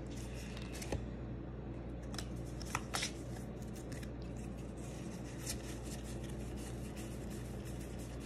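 Pokémon trading cards being handled: a few light clicks and slides as the cards are taken out of a freshly opened booster pack and sorted in the hand. A steady low hum sits underneath.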